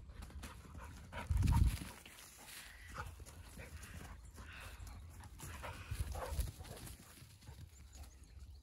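Several dogs playing and running about on grass close by, their movements and breathing making scattered short sounds. Two low bumps stand out, the loudest about one and a half seconds in and another about six seconds in.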